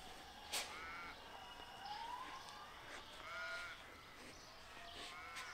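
Three short animal calls, each rising and falling in pitch, spaced about two seconds apart, over a faint outdoor background, with a single click about half a second in.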